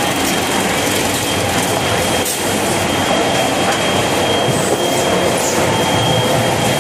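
Kitchen towel paper production line machinery running: a loud, steady mechanical clatter of conveyors and rollers, with a thin steady high whine above it.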